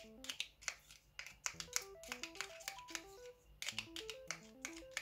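Background music: a light melody of short notes in rising runs over a beat of finger snaps.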